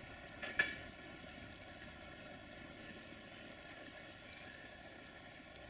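A train running in the distance: a faint, steady rumble and hiss, with one sharp clank about half a second in.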